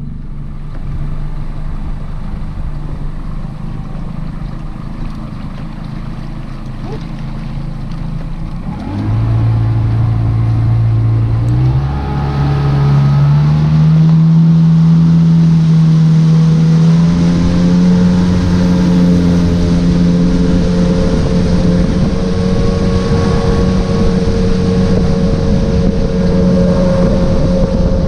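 Boat's outboard motor running at low speed, then throttled up about nine seconds in; its note climbs in steps as the boat gathers speed, then holds steady at cruising speed.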